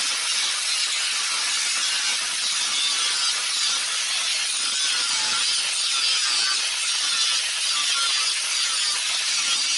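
A power tool cutting into the steel wall of a gas bottle, a steady, unbroken grinding hiss with a slightly wavering pitch.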